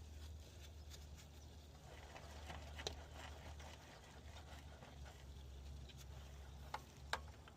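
A few light clicks and taps of hand tools and parts being handled, the sharpest about three seconds in and twice near the end, over a faint steady low hum.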